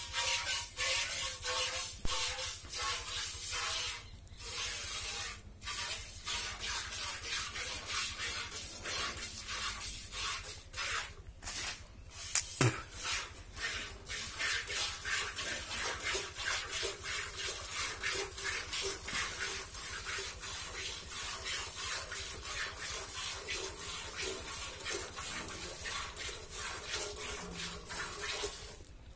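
Milk squirting from a cow's teats into a steel bucket during hand milking, in quick rhythmic spurts about two a second. One sharp click comes about halfway through.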